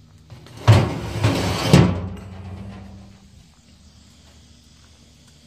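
A burst of clattering with three heavy thumps, lasting about a second and a half and dying away, then a faint steady hiss.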